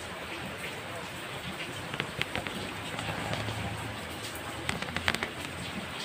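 Rain falling onto wet concrete and puddles: a steady hiss full of sharp drop splats, with a cluster of louder splats about two seconds in and another about five seconds in.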